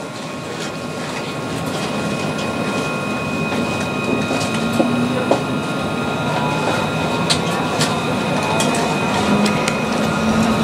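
Tram running on its rails, with steady high whining tones over the rumble and rattle of the running gear, growing gradually louder.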